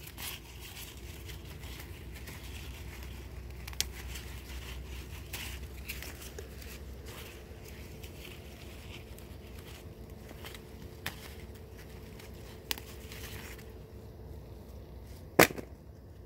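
Pole bean pods being snapped off the vines by hand: a few sharp snaps spread out over the clip, the loudest near the end, over leaf rustle and a faint steady hum.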